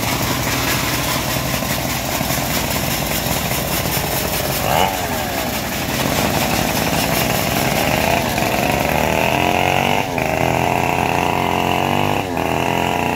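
Engine of a homemade bandsaw sawmill running, idling at first, then revving up about five seconds in. It runs on at a higher, steady whine, with a few brief dips.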